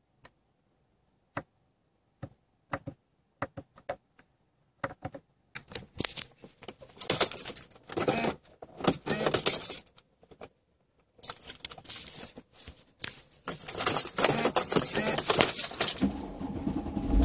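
Keys jangling and clattering with handling noise, in repeated bursts after a few scattered faint clicks, with a short pause about two thirds of the way in. About a second before the end a low steady rumble sets in.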